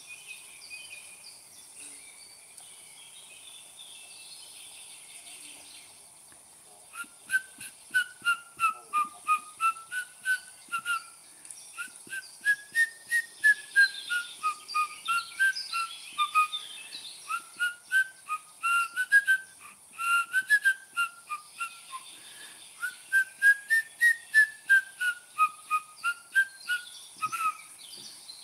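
Phone ringtone: a melody of short electronic beeps, several a second, stepping up and down in pitch. It starts about seven seconds in and stops just before the end, over faint outdoor ambience.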